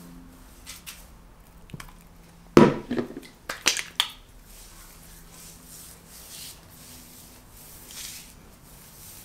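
Hands smoothing and scrunching styling gel through wet curly hair and rubbing it between the palms: soft squishing and rubbing, with a few louder, sharp rubs a little before the middle.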